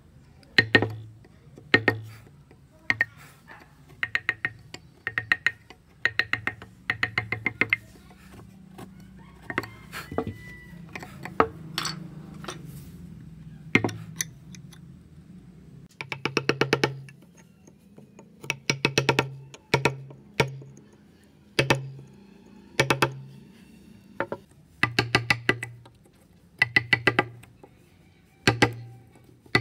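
Wooden mallet tapping a carving chisel into a block of wood, in quick runs of several sharp knocks with short pauses between runs.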